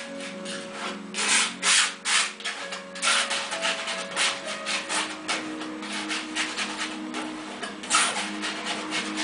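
Palette knife scraping and dabbing paint across a stretched canvas in a run of quick, irregular rough strokes, with a few louder swipes about a second in and again near the end.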